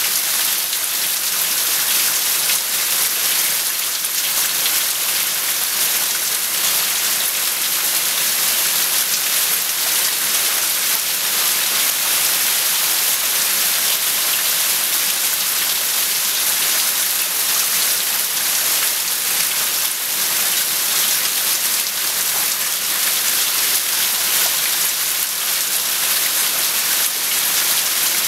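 Torrential rain pouring down on parked cars and a flooded parking lot: a loud, steady hiss of heavy rain with no letup.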